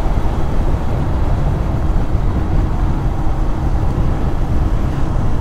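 Steady rush of wind and motorcycle engine and road noise while riding at speed, the wind heavy on a helmet-mounted camera's microphone.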